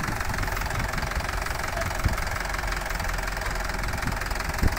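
Farm tractor's diesel engine running steadily at low revs, with a couple of short low thumps, the loudest near the end.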